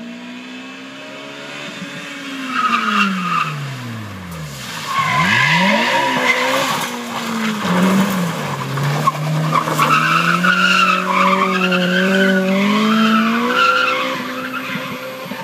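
Honda Civic engine dropping in pitch as the car comes in, then its tyres squealing in a long, wavering screech as it slides around in a tight turn on tarmac, the engine revving up again under the squeal as it pulls away.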